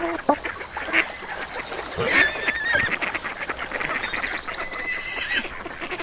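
Farmyard poultry calling, geese and other fowl: short honking calls near the start, then higher warbling calls about two seconds in and again about four to five seconds in.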